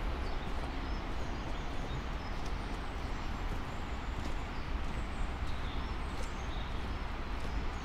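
Footsteps walking on a road surface, with small birds chirping faintly in short high calls over a steady low rumble.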